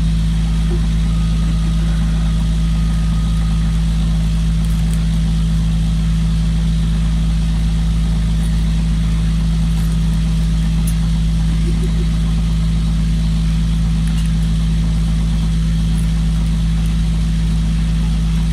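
A boat's inboard engine running at a steady cruising speed, heard inside the wheelhouse as a loud, even drone with a deep hum that does not change.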